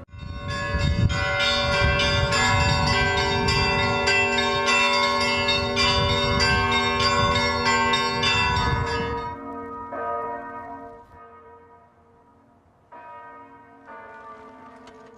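Several church bells rung together in a fast, dense peal, loud for about nine seconds, then stopping and ringing away, with a couple of quieter single strikes near the end.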